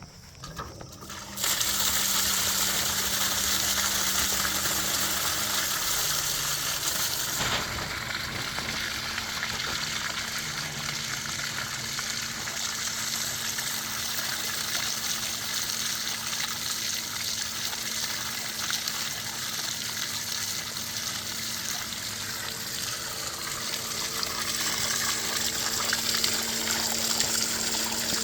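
Sump pump discharge: water gushing out of the discharge line, starting suddenly about a second and a half in and then running steadily, with a low steady hum beneath it.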